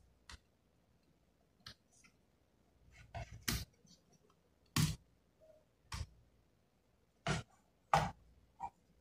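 About nine sharp, irregularly spaced clicks and taps of hands handling an opened laptop's case and internal parts.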